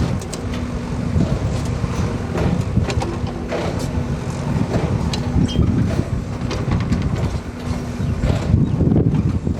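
Bull backhoe loader's diesel engine running steadily, with scattered knocks and clanks over it.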